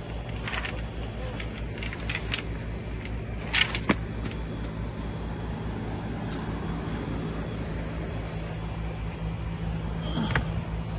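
An engine running steadily with a low, evenly pulsing hum, with brief rustles and a sharp knock about four seconds in.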